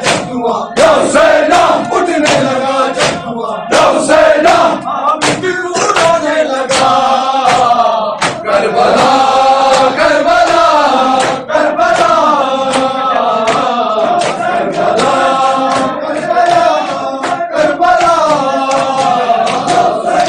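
A group of men chanting a noha in unison during Shia matam. Their hands strike their chests in regular slaps that keep time with the chant.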